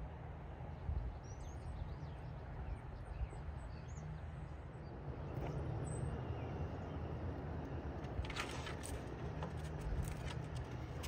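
Outdoor ambience: small birds chirping now and then over a steady low rumble, with a few sharp clicks in the second half.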